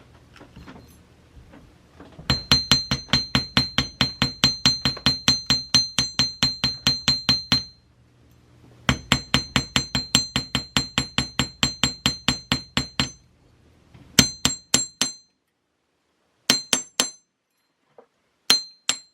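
Chasing hammer tapping a metal wire link to texture its edges, loud, each blow ringing with a high metallic clink. It goes in two long runs of quick blows at about five a second, then a few short bursts of two or three.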